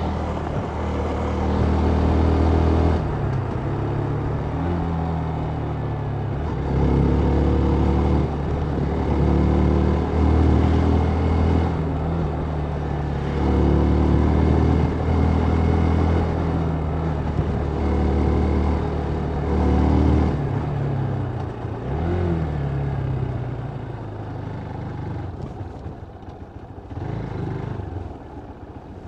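Motorcycle engine running under way, its pitch stepping up and down as the throttle and gears change, over a steady haze of road and wind noise. It eases off and grows quieter near the end.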